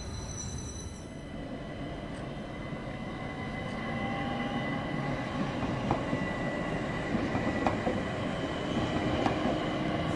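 Electric passenger trains moving through a station: rumbling wheel-on-rail noise under a steady electric whine, with a few sharp clicks of wheels over rail joints in the second half. It grows louder toward the end as an S-Bahn electric multiple unit passes.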